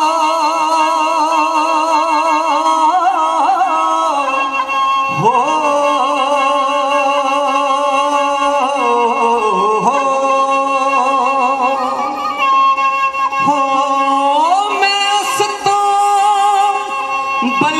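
Slow, unmetred opening of a Punjabi folk song: long held melodic notes that waver and slide upward into new notes, with no beat yet.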